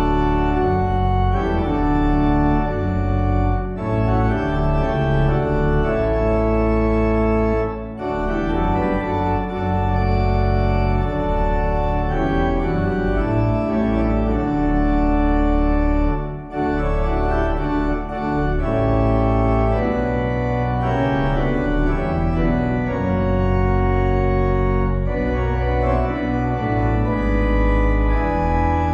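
Organ music: slow, held chords that change every second or two, with short breaks between phrases.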